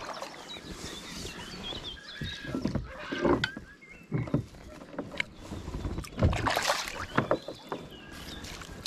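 Water splashing and sloshing in irregular bursts, loudest about three seconds in and again around six to seven seconds in.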